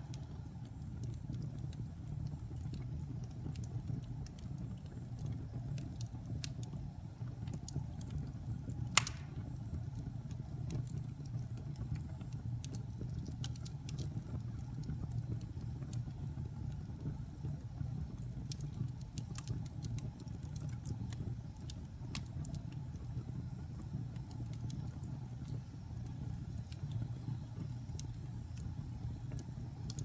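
Fire burning in a fireplace: a steady low rumble of flames with frequent small crackles and one louder pop about nine seconds in.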